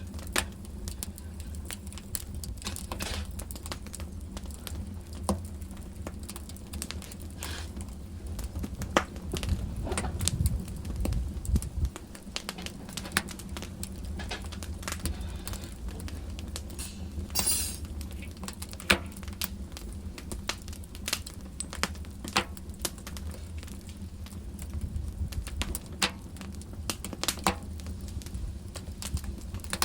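Wood fire burning in a fireplace: irregular crackles and sharp pops over a low steady rumble of the flames, with a brief hiss a little past halfway.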